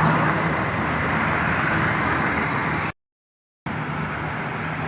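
Road traffic at a busy crossroads: engines and tyres of passing vehicles, with a steady low engine hum underneath. About three seconds in, the sound cuts out completely for under a second, then the traffic noise resumes.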